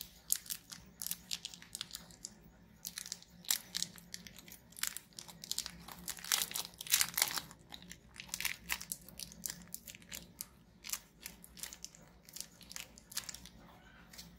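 Clear cellophane lollipop wrapper crinkling and crackling as fingers squeeze and handle it, in irregular quick crackles, loudest around the middle.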